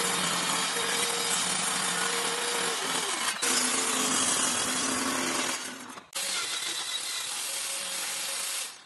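Corded circular saw running and cutting through a plywood sheet, with a steady motor whine and a brief break about three seconds in. It winds down about six seconds in. A second steady power-tool run follows, from an electric drill mounted in a drill-press stand, and it fades out near the end.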